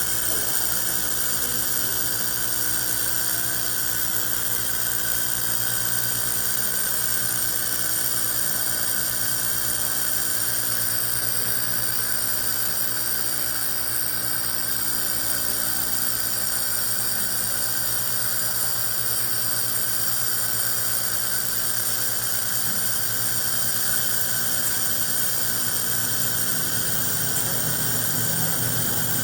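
Jasic hand-held laser welder running on stainless steel: a steady hiss with a constant hum and high-pitched whine that does not change.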